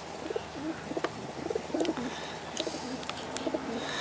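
Rock pigeons cooing in repeated low phrases, typical of males courting, with a few sharp ticks over the top.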